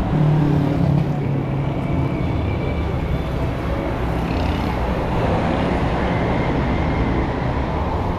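City street traffic: car and bus engines running and passing, with one vehicle louder and closer in the first second.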